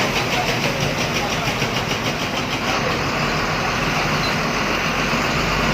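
Bus engine running with steady road and rattling noise.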